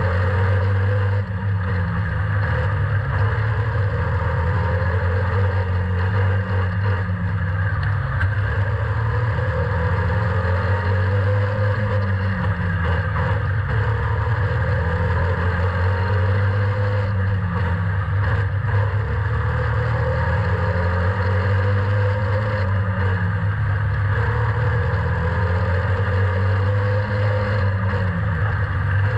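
Slingshot race car's engine heard on board during a race, revving up and backing off over and over, about every two and a half seconds, as it powers down the short straights and lifts for the turns of a tight indoor oval.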